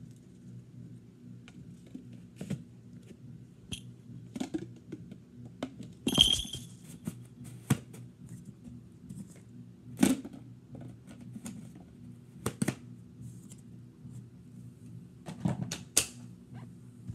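Scattered knocks and clicks of handling over a faint steady low hum. One louder clink about six seconds in rings briefly, and there are sharp knocks around ten and twelve seconds and again near the end.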